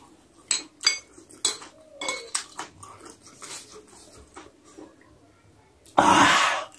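A metal spoon clinking and scraping against a ceramic plate in a series of sharp clicks as pieces of fried goat are scooped up. About six seconds in, a loud, short breathy burst as the spoonful goes into the mouth.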